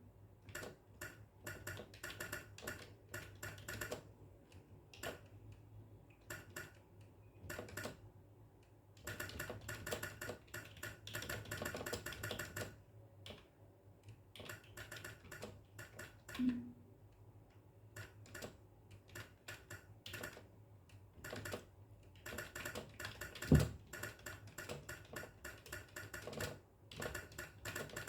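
Fast typing on a computer keyboard: runs of key clicks broken by short pauses, with one heavier thump about two-thirds of the way through.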